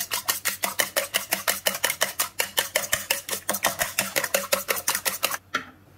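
Two eggs being beaten in a bowl by hand, the utensil clicking against the bowl in a fast, even rhythm of about seven strokes a second. The beating stops about five and a half seconds in.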